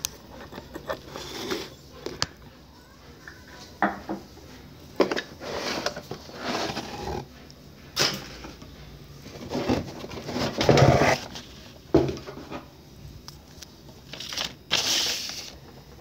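Irregular rustles and knocks from handling of the recording tablet as it is moved over paper and its screen is touched, the loudest about eleven seconds in.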